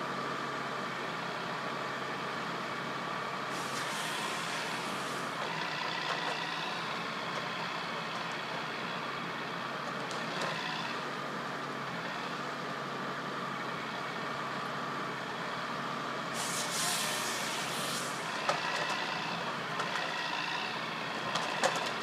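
The diesel engine of a forestry machine with a hydraulic crane runs steadily, with a steady whine over the drone. Two hisses of a second or two come about four seconds in and again about sixteen seconds in, and a couple of sharp knocks come near the end.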